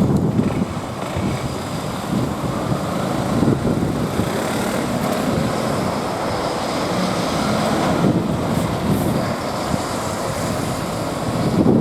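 Road traffic passing steadily, cars and trucks, with wind buffeting the microphone.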